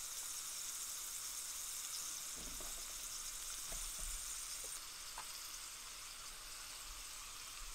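Food frying in olive oil in a skillet: a steady sizzling hiss, with a few light knocks.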